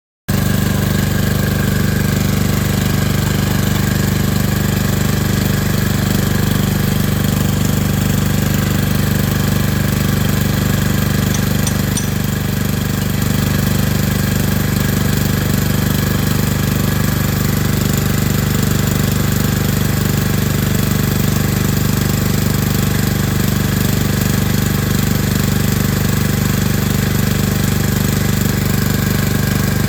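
An engine running steadily at an even speed, with a fast, even knocking texture.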